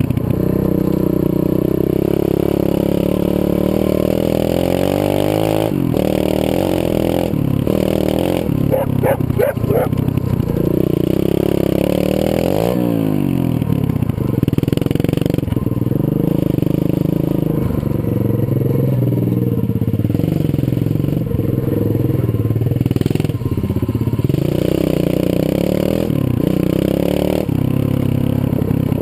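125cc Zongshen single-cylinder four-stroke pit bike engine running under way, its revs rising and falling as the rider opens and closes the throttle, with a marked drop and climb in revs about halfway through.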